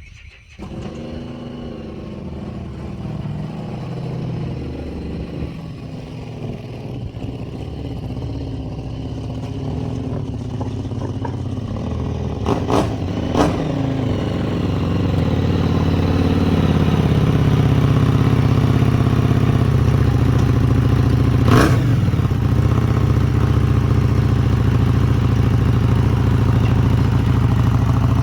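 Shop air compressor kicking on and running steadily to refill a low tank, its pump growing louder and heavier over the first half before settling, with a few sharp clicks about halfway through.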